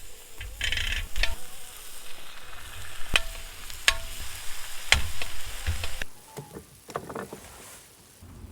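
Food sizzling in a hot pan, with several sharp clacks of a utensil against the pan as it is stirred. The sizzling drops off about six seconds in.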